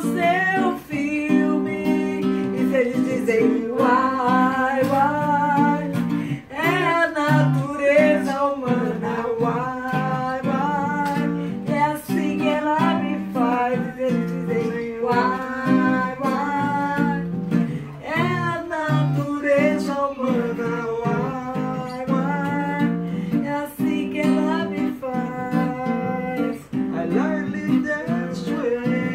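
Acoustic guitar strummed in a steady accompaniment, with a man singing a melody over it throughout.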